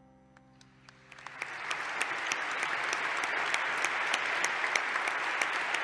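Audience applauding: a few scattered claps as the last music notes fade out, building within about a second and a half into full, steady applause.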